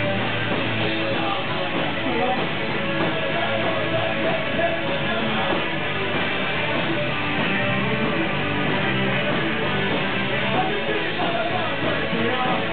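Punk band playing live: bass guitar, drums and electric guitar in a dense, steady, loud wash of sound.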